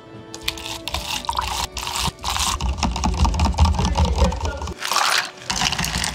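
Drink making: rapid clattering and clicking of plastic cups, ice and utensils being handled, with a low rumble from about one second in until nearly five seconds in.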